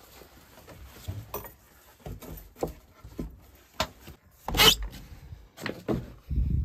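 Rustling of a jacket being handled and hung on a wooden wall peg, with scattered clicks and knocks. A louder knock comes about four and a half seconds in and a low thump near the end.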